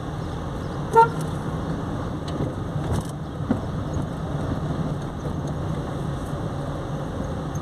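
Car driving slowly on a village road, heard from inside the cabin: a steady low hum of engine and tyre noise. About a second in, a short sharp pitched sound stands out above it.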